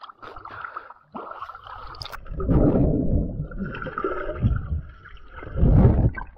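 Water sloshing and gurgling around a camera as it dips in and out of the water, with two louder, muffled, deep surges while it is under, one in the middle and one near the end.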